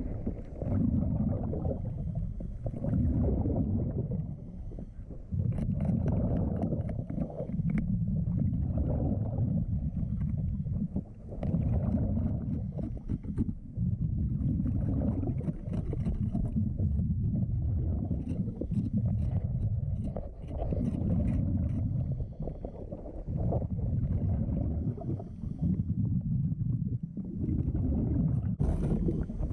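Muffled underwater rumble of a diver's exhaled air bubbles, surging in regular bursts every two seconds or so, with faint ticks and scrapes of the hull being scraped clean of growth.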